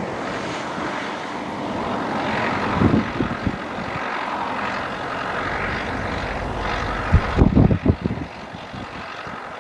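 Ford 7610 tractor's diesel engine running steadily under load as it pulls a plough slowly through the field, with gusts of wind buffeting the microphone about three seconds in and again near the end.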